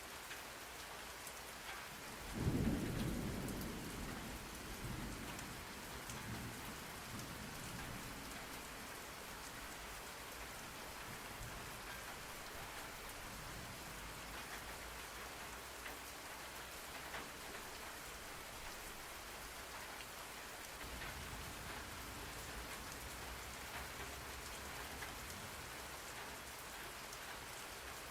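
Steady rain falling, with a roll of thunder about two seconds in, the loudest sound, that fades away over several seconds. A fainter low rumble of thunder comes near the end.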